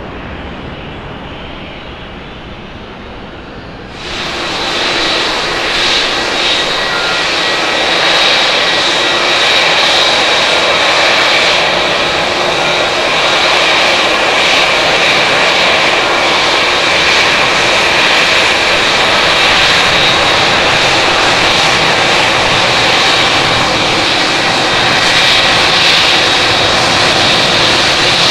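Airbus A330-200's jet engines fading as it climbs away. About four seconds in, this gives way to a Boeing 787-9 Dreamliner's turbofans at takeoff power on the takeoff roll: loud, steady jet noise with a high fan whine, building for a few seconds and then holding.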